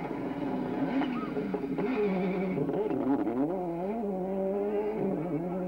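Toyota Corolla WRC rally car's turbocharged four-cylinder engine running at high revs as the car slides through a gravel corner. The engine note drops and climbs back about three seconds in, then holds steady.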